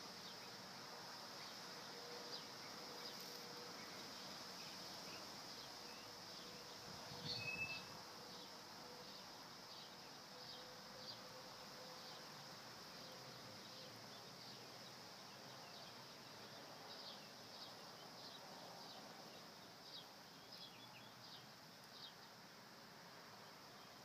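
Faint outdoor ambience: a steady high-pitched insect drone with scattered short chirps, and one louder chirp about seven seconds in.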